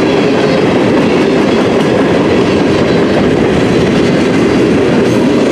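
Mixed freight train's cars rolling past close by: a loud, steady rumble of steel wheels on the rails.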